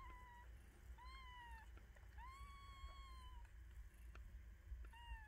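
Newborn kittens mewing faintly while nursing: four thin, high cries, each rising slightly and then falling, the third the longest at about a second.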